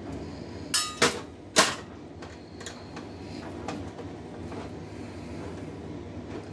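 Metal parts of a steel PC tower case being handled: three sharp clanks close together about a second in, then light scattered clicks and rattles.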